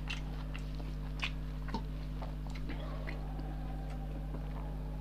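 Steady electrical mains hum with scattered faint clicks and taps at irregular intervals.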